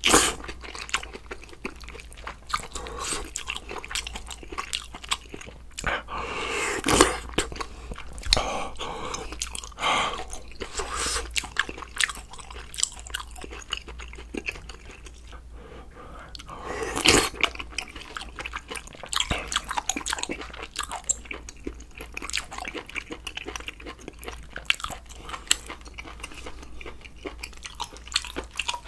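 Close-miked eating: chewing and crunchy bites as a person eats a meal of hot pot, noodles, rice and kimchi, with a few louder bursts among the steady chewing.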